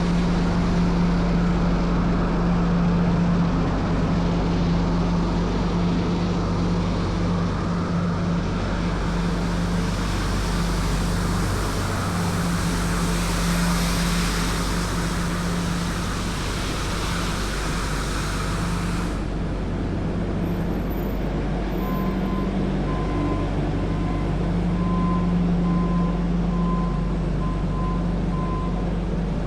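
Tymco 435 regenerative-air street sweeper running: a steady engine and blower drone under a broad rushing hiss. The hiss swells for several seconds midway, then cuts off suddenly. A faint repeated beep sounds near the end.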